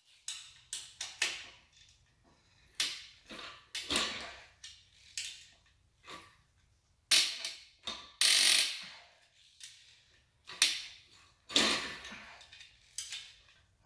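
Socket ratchet clicking in short, irregular bursts, with metal tools clinking, as bolts on an engine block are tightened in stages by torque and then by angle.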